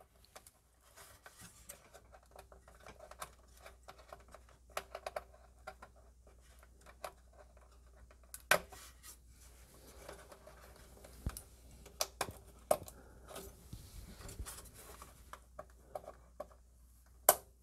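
A SATA data cable's plastic connector being worked out of a motherboard SATA port and pushed into another: scattered faint clicks and scratches of plastic handling, with a sharper click about halfway through.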